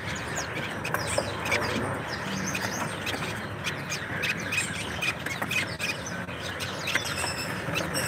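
Many caged songbirds chirping and calling at once, a dense scatter of short high chirps over a steady background hum of the shop.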